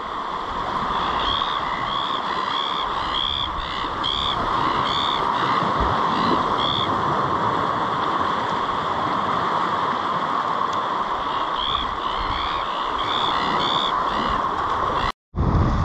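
Steady wash of surf and wind around sea rocks, with short high chirps repeating in two runs over it.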